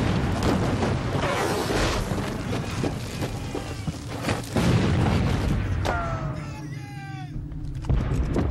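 Battle sound effects of cannon and rifle fire: a continuous heavy rumble of booms, with sharp single shots standing out about four, six and eight seconds in.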